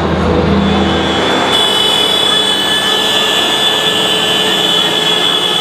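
Many tractor and machine horns held together in a chorus of steady tones: the horn salute that marks the close of the fair. Higher-pitched horns join about one and a half seconds in.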